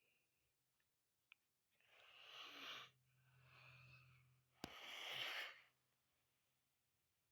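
A person's breathing: three heavy, breathy exhalations about a second each, with a sharp click just before the last one.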